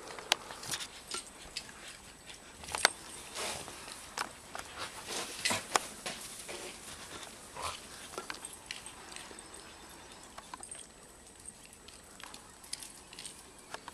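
Two dogs playing in snow close by: irregular scuffling and short sharp sounds, loudest about three seconds and five and a half seconds in, growing sparser toward the end.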